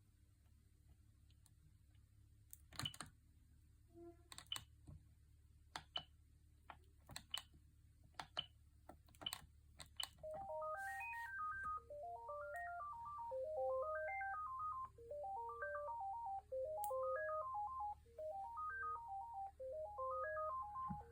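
A Siemens Gigaset C450 cordless phone handset: about a dozen scattered clicks over the first ten seconds, then a melodic ringtone starts and plays on. The ringtone's notes step up and down in a phrase that repeats about every two seconds.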